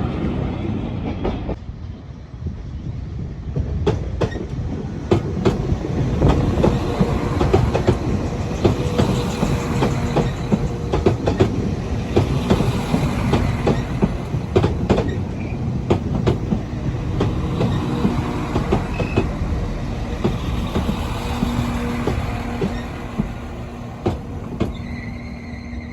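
A train running past on the track, its wheels clattering over rail joints and points, with a steady low hum underneath in the second half.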